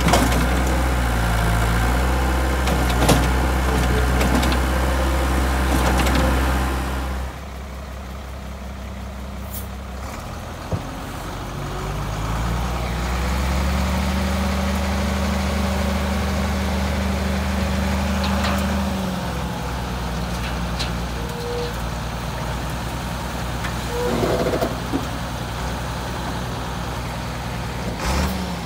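Bobcat skid steer's engine running steadily at working speed while it loads the dump truck. About seven seconds in, this gives way to the dump truck's engine, which speeds up for several seconds and then settles back as the hydraulic dump bed is raised to tip a load of manure.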